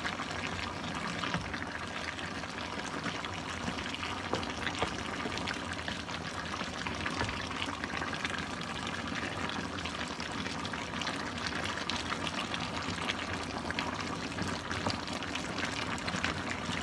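Coconut-milk sauce boiling steadily in a wok, a constant bubbling with fine crackles, as it is reduced to thicken.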